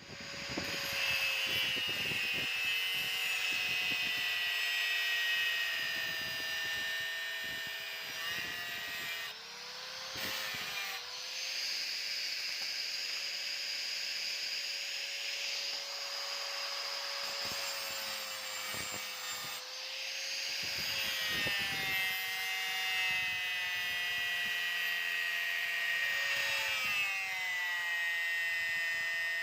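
Electric power tool switched on and running at speed: a steady high whine over a hiss. Its pitch sags and recovers briefly about ten seconds in and again about twenty-one seconds in.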